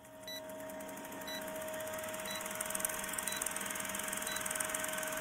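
Film-projector countdown sound effect: a steady mechanical whir with fast, even clatter, and a short high beep once a second, five times.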